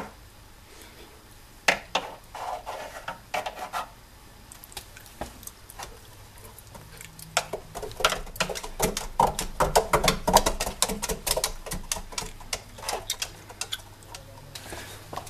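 Cat running in a 95 cm homemade exercise wheel: rapid, irregular tapping and clicking of paws on the wheel's running surface over a low rumble of the turning wheel, densest and loudest in the middle. A few shorter bursts of clicks come about two seconds in.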